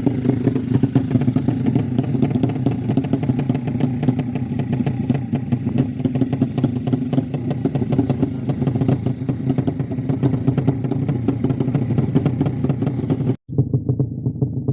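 Modified 200cc four-stroke underbone motorcycle engine running steadily, cut off briefly near the end before it carries on.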